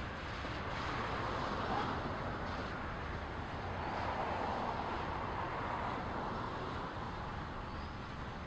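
CN double-stack intermodal freight train's container well cars rolling past at close range: a steady roar of steel wheels on the rails, swelling slightly about a second in and again midway.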